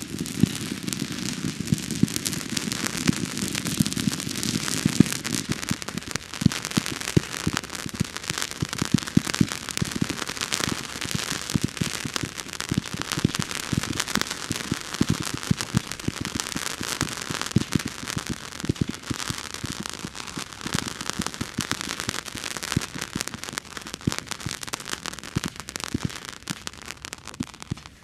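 Nico 'Light Tunnel' ground firework burning, with a continuous hiss and dense, irregular crackling that thins slightly toward the end.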